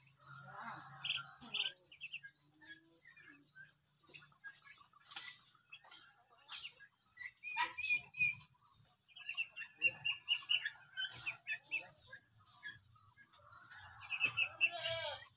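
Young turkeys peeping and chirping as they feed, with bursts of quick trilled chirps. Behind them a steady run of high chirps repeats about three times a second.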